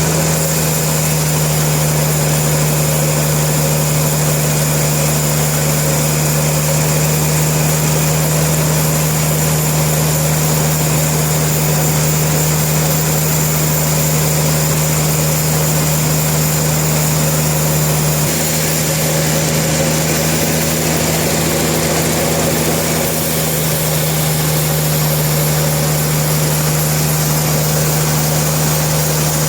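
Sawmill machinery running steadily with a constant low hum, its pitch dipping slightly about two-thirds of the way through before settling back.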